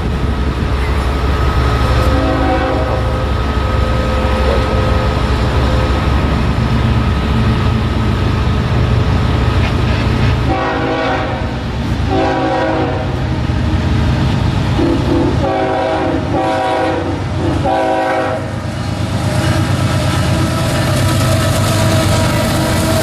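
Diesel locomotive running with a steady low rumble while its multi-chime air horn sounds five blasts, two longer then three shorter, starting about ten seconds in; a brief horn note is heard near the start.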